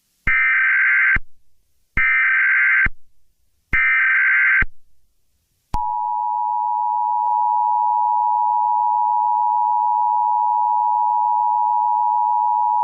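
Emergency Alert System tones: three short bursts of SAME header data, each about a second long, then about six seconds in the steady two-tone EAS attention signal starts and holds. The tones announce the start of an emergency alert broadcast.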